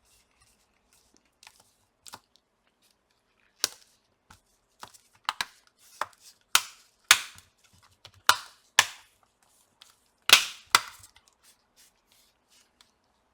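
Plastic bottom cover of an HP ProBook x360 11 G1 laptop snapping onto the chassis, its clips going in one after another: about a dozen sharp clicks at uneven intervals, the loudest near the end.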